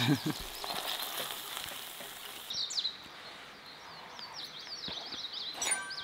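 Fried rice and sauce sizzling on a hot griddle pan for the first couple of seconds; the sizzle then cuts off and small birds chirp in quick rising and falling notes.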